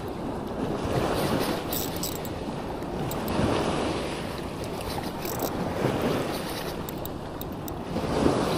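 Ocean surf washing on the beach with wind on the microphone, a steady rushing that swells and eases every two to three seconds.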